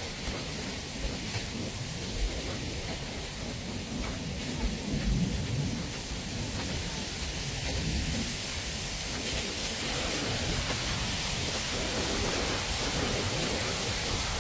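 Heavy rain falling steadily with thunder rumbling during a lightning storm.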